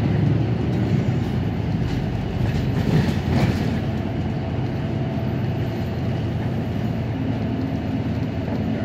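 Nagoya city bus running along the road, heard inside the passenger cabin: a steady low engine drone and road noise, with a few brief rattles about three seconds in.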